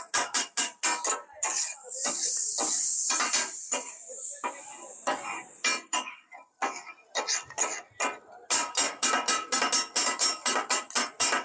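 Two metal spatulas clanging rapidly on a hot iron griddle (tawa), about five ringing strikes a second: the katakat chopping of brain masala. The strikes thin out for a few seconds while a sizzle rises, then pick up again near the end.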